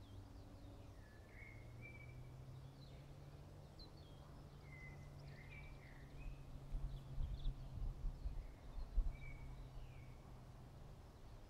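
Small birds chirping and whistling short notes in woodland over a faint low hum, with a stretch of low rumbling on the microphone from about six to nine and a half seconds in.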